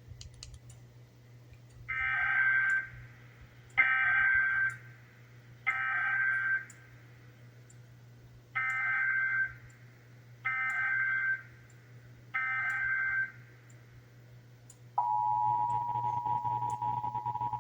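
Emergency Alert System test signal: six short, screechy digital data bursts (SAME coding) in two sets of three, about a second apart. About 15 s in comes the steady two-tone EAS attention signal, which holds on.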